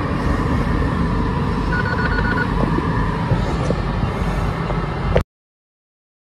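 Steady rumble of car cabin noise, with a short run of rapid high electronic beeps about two seconds in. The sound cuts off abruptly a little after five seconds.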